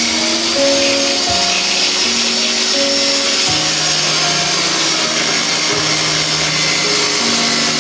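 A power tool running steadily with a continuous grinding hiss, under background music with a slow melody of held notes.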